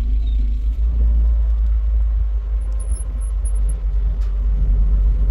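Steady engine and road rumble heard from inside the cab of a small truck while it is being driven.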